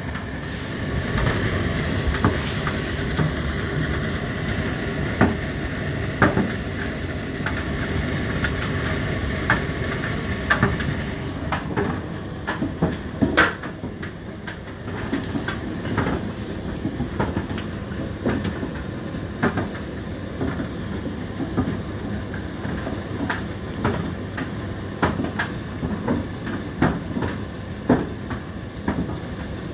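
Indesit IDC8T3 condenser tumble dryer running mid-cycle: a steady drum-and-fan noise with irregular knocks and clicks as the load tumbles in the drum.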